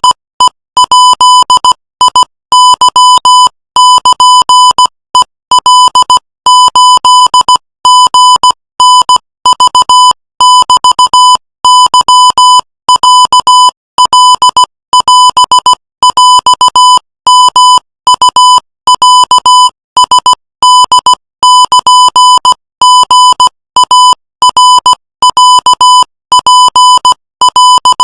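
Morse code sent as a steady beeping tone at 18 words per minute: short dots and longer dashes separated by brief silent gaps, in an unbroken stream.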